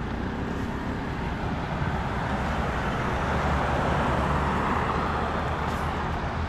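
Road traffic noise: cars and motorbikes passing on the street, a steady rumble and hiss that swells a little in the middle.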